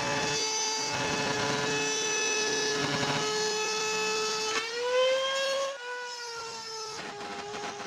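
Electric power tool cutting wood: a steady motor whine over the rasp of the cut. About five seconds in, the motor's pitch rises and the sound swells. It then eases back to a quieter, steady whine.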